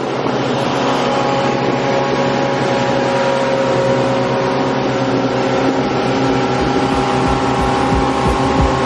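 Motorboat engine running steadily at cruising speed, with the rush of water from the wake and wind.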